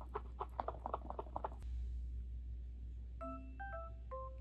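Background music of short, stepping beep-like notes, with a rapid run of light clicking taps through the first second and a half.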